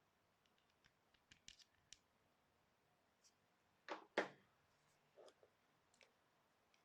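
Near silence broken by faint handling clicks and taps, with two louder sharp clicks about four seconds in.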